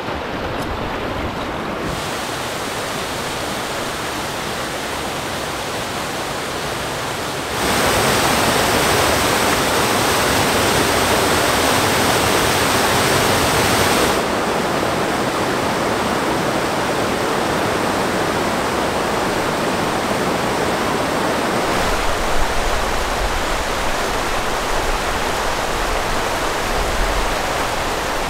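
Rushing whitewater of a boulder-strewn river rapid and waterfall, a steady loud roar that jumps louder for about six seconds a third of the way in, then drops back. A low rumble joins in during the last six seconds.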